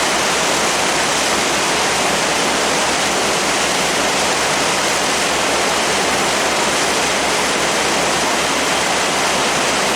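Steady, loud rushing noise of wind and water passing a moving passenger boat, with a low, fast, regular throb underneath.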